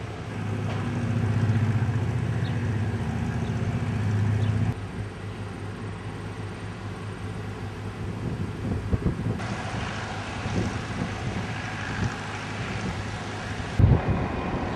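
A steady low engine hum for the first few seconds, then outdoor noise with wind on the microphone. The sound changes abruptly several times.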